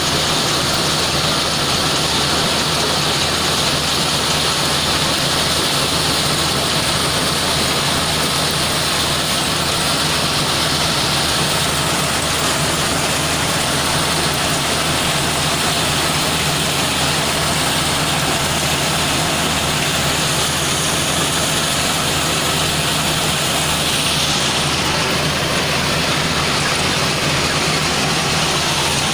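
Caterpillar loader's diesel engine running at a steady speed.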